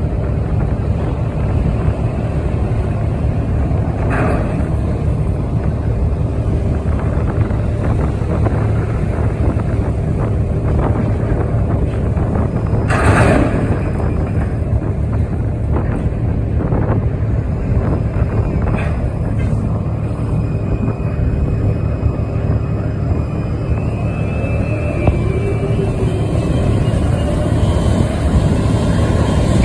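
Steady low rumble of a container crane's machinery, heard from inside the operator's cab while the empty spreader is moved. A brief knock sounds about four seconds in and a louder one about thirteen seconds in.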